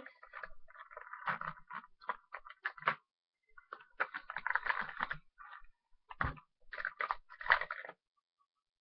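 Rustling and light clicks of small objects being handled and moved close to the microphone, in irregular bursts that stop about eight seconds in.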